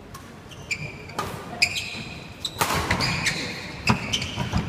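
Badminton doubles rally on a wooden indoor court: many short, high squeaks of players' shoes, sharp racket hits on the shuttlecock, and footfalls. From about halfway through, spectators' noise rises beneath the play.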